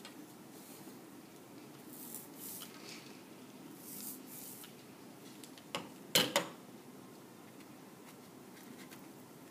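Hands handling an inked foam printing plate on a wooden worktable: soft rustling and scraping, then a few sharp knocks a little past halfway, the loudest sounds.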